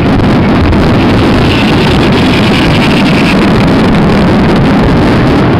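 Fireworks finale barrage: many aerial shells bursting in quick succession, their reports merging into one continuous loud rumble.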